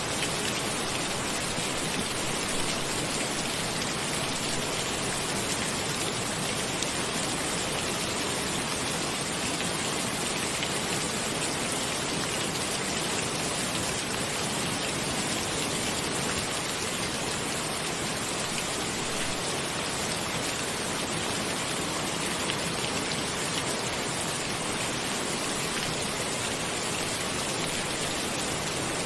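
Steady rain falling on a cabin roof, an even, unbroken patter.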